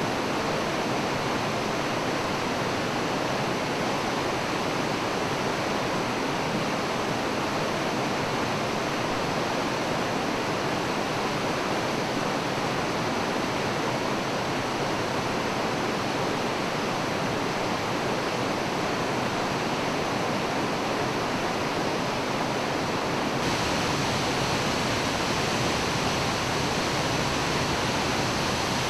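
A 30 m plunge waterfall, Dodoro Falls, with water pouring in a steady, unbroken rush. The high end brightens slightly about 23 seconds in.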